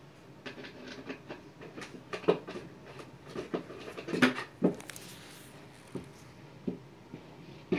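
Irregular knocks, taps and scrapes of flat-pack desk panels and fittings being handled and worked into place by hand, the loudest knocks about two and four seconds in.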